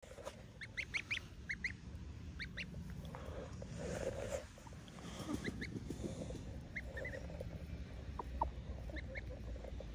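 Goslings peeping: short, high-pitched calls that come in quick runs in the first couple of seconds, then more scattered.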